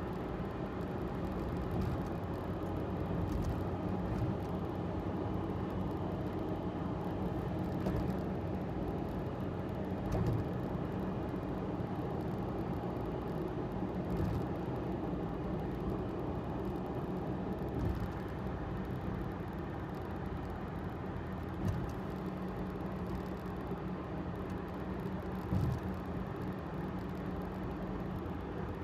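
A Subaru Sambar's small 660 cc engine drones steadily at highway cruising speed over a steady hiss of tyre and road noise, with a few light thumps.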